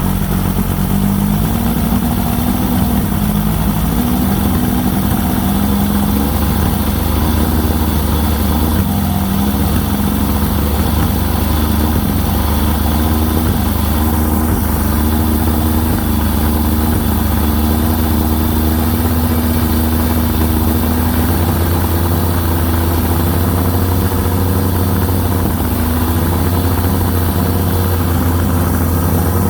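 Engine idling steadily and loudly, which its owner suspects of either sneezing back through the intake or missing.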